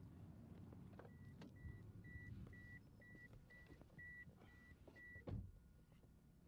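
Car's warning chime beeping at an even pitch, about two short beeps a second, for around four seconds. It stops just before a single thump near the end.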